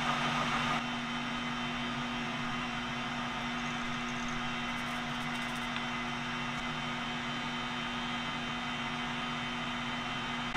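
Metal lathe running steadily, spinning a steel pin in its chuck while a 1/8-inch drill bit in the tailstock is fed in to drill a grease channel; a steady hum with a constant tone, the higher hiss easing slightly about a second in.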